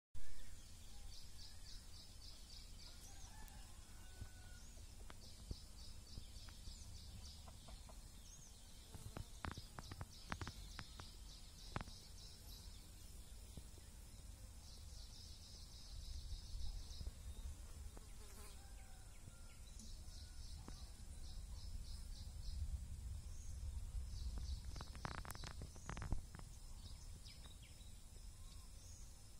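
An insect calls in short pulsed trills, each lasting a second or two and repeating every few seconds, over a low rumble. A few sharp clicks come about a third of the way in and again near the end.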